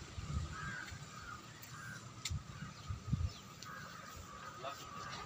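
Crows cawing, several short calls in the first two seconds, over faint irregular low rumbles.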